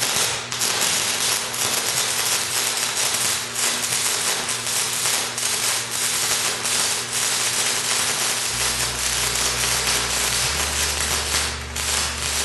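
Stick (SMAW) welding arc crackling and sputtering steadily as a 1/8-inch electrode burns along a small lap joint. A low steady hum joins about eight and a half seconds in.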